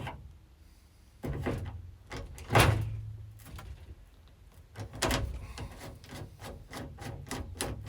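Tools and parts being handled and set down on a workbench: a few separate knocks and clatters, the loudest about two and a half seconds in, then a run of quick light clicks near the end.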